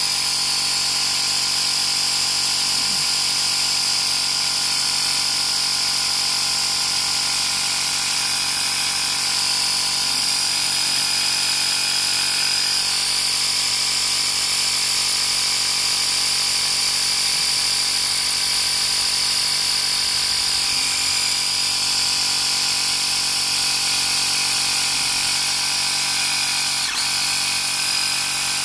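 Workzone Titanium 20V cordless air compressor running steadily while inflating a car tyre through the valve stem, a continuous motor-and-pump drone with a high whine.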